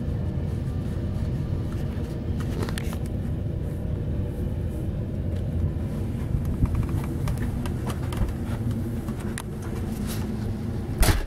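Steady low rumble with scattered clicks and knocks as a cabin door is pushed open and the camera is carried in, and one sharper, louder knock near the end.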